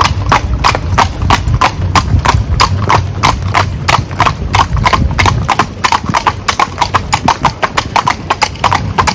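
Hooves of a pair of carriage horses clip-clopping on asphalt at a brisk, even pace, about four to five strikes a second, over a low steady rumble.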